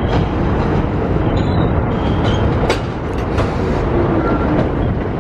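New York City subway Q train pulling into an elevated station and rolling past close by: a steady rumble of steel wheels on rails, with a few sharp clacks over the rail joints about halfway through.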